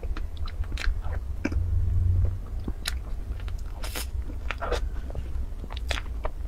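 Close-miked chewing of soft cream cake: irregular wet, sticky mouth sounds and smacks as forkfuls are bitten and chewed, over a steady low hum.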